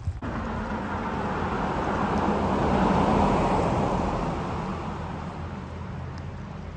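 Interstate highway traffic: a vehicle passing at speed, its tyre and road noise swelling to a peak about three seconds in and then fading.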